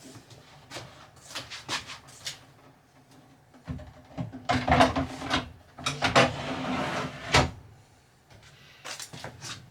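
Knocks and clatters of wooden kitchen cabinets and panels being handled and fitted, with a louder stretch of steady buzzing and rattling in the middle.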